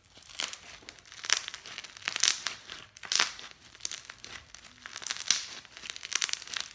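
Floam slime full of tiny foam beads being squeezed and kneaded in the hands, a squish about once a second.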